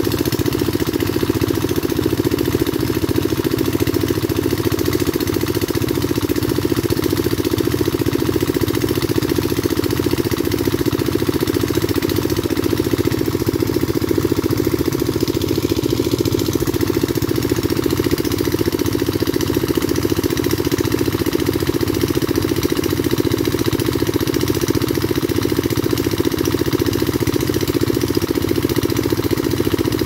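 Small engine-driven water pump running steadily at a constant speed, with water gushing from its outlet pipes.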